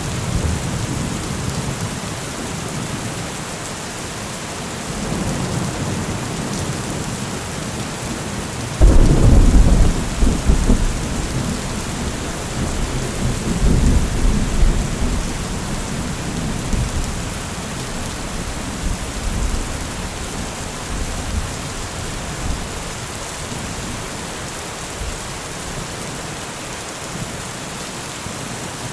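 Steady heavy rain with rolling thunder: a rumble fading away in the first few seconds, then a loud clap about nine seconds in that rumbles on for several seconds before dying down.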